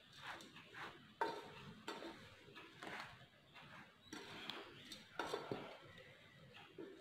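Metal spoon scraping and clinking against a stainless steel bowl as it stirs a dry mix of semolina, chopped onion and herbs: faint, irregular strokes with a few sharper clinks.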